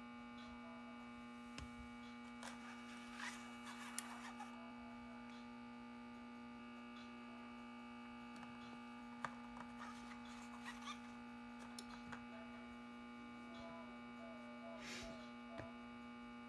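Steady electrical mains hum from the transformer powering a model-train signal bridge and its infrared controller, with a few faint clicks and rustles scattered through it.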